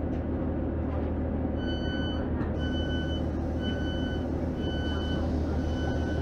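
Diesel train engine idling with a low steady hum, while the train's door-warning tone beeps five times, about once a second, starting a second and a half in.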